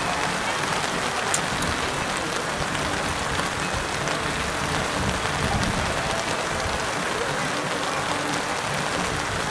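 Steady rain falling, a constant even hiss of rain on surfaces.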